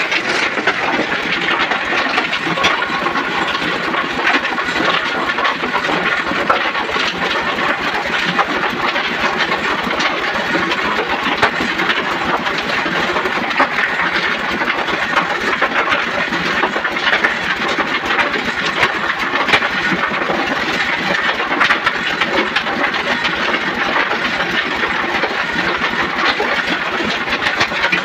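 A motor-driven machine running steadily and loudly, a dense rattling din that does not let up.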